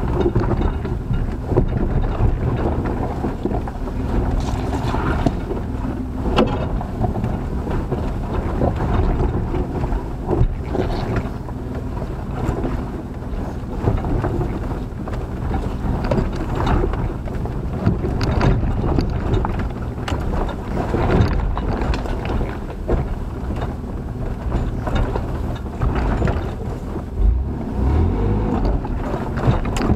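Ford Ranger pickup heard from inside the cab as it crawls over a rocky trail: the engine runs low and steady under a rumble of tyres and body, with occasional sharp knocks as it goes over rocks.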